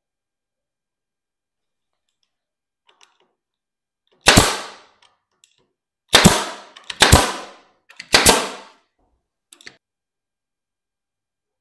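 Four sharp bangs, each ringing away within about half a second: the first stands alone, the other three come about a second apart. Faint small clicks come before and after.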